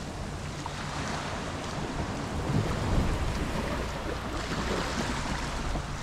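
Gulf surf washing up on the beach, a steady rush that swells about halfway through, with wind rumbling on the microphone.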